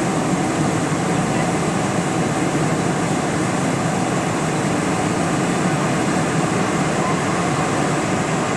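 Steady cabin noise inside a Boeing 747 airliner, the even rush of airflow and engines with no change in level.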